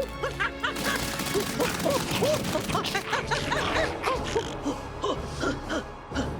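Fast cartoon action music, a busy run of many short rising-and-falling notes over a noisy bed.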